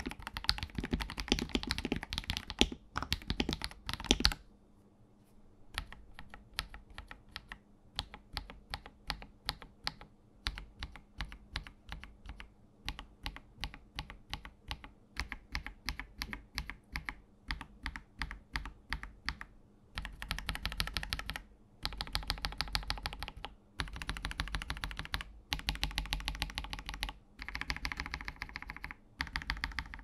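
Keystrokes on a KBD67 Lite R3 mechanical keyboard with Akko CS Rose Red linear switches. It opens with fast two-handed typing on the Krytox 205g0-lubed switches. After a short pause come single keystrokes about two a second, alternating between unlubed and lubed switches, and from about two-thirds through, quick runs of rapid keystrokes.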